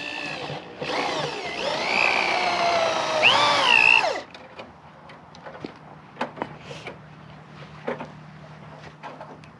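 Power drill running for about four seconds, its pitch rising and falling as the speed and load change, then stopping abruptly. Scattered light clicks and taps follow.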